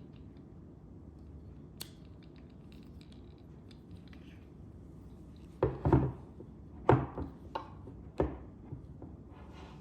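Light clicking, then several sharp clacks and knocks as metal panoramic-head parts are handled and set down, the loudest a cluster a little past halfway.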